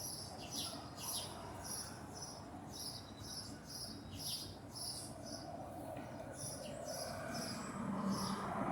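A flock of small birds chirping, with quick, high chirps several times a second. A rushing noise grows louder near the end.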